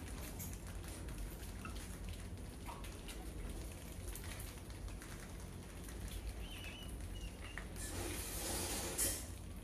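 Mice scurrying on a tiled floor and climbing over a wire-mesh cage trap: a light patter and scratching of claws, with a few short, faint squeaks. A louder scratching rustle builds near the end and ends in a sharp click.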